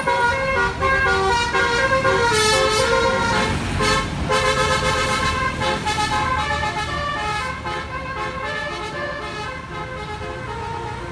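A bus's Basuri telolet horn playing a tune of quick changing notes over engine and road rumble, growing fainter in the second half.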